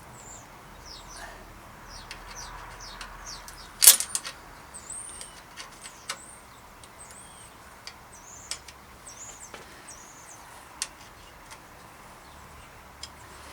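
Small metal bike parts and tools clicking and tapping while a front derailleur is being fitted, with one sharp click about four seconds in. Faint high chirps sound in the background.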